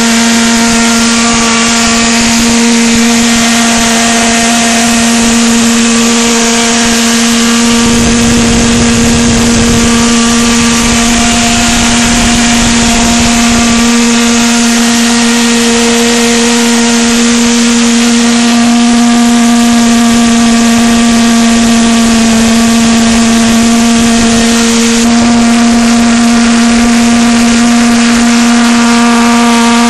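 Propane-fuelled stainless-steel valveless pulsejet engine running continuously with a loud, steady buzz at a fixed pitch, its tube glowing red-hot.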